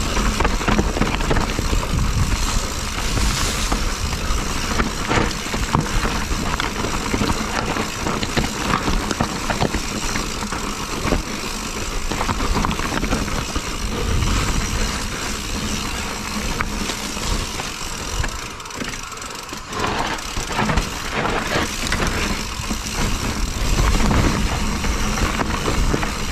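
Mountain bike being ridden along a trail: wind rushing over the microphone and tyre noise on the dirt, with the bike rattling and knocking over bumps. It eases briefly near the two-thirds mark.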